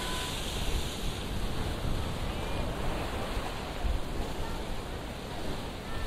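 Sea surf washing and foaming around shoreline rocks: a steady rush of water with a low rumble underneath.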